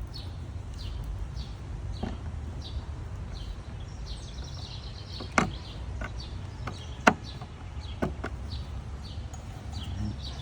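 Sharp plastic clicks and knocks of the engine-bay air intake housing being refitted by hand, two of them loud about halfway through. Underneath runs a steady low rumble with faint, quick high chirps.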